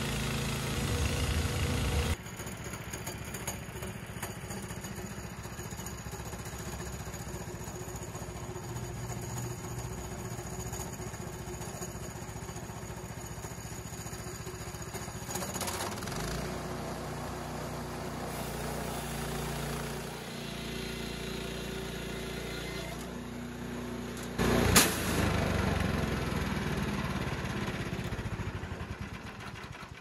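Gas engine of a portable band sawmill running under load as the band blade cuts through a log. About three-quarters of the way through there is one sudden loud crack, and near the end the engine sound dies away.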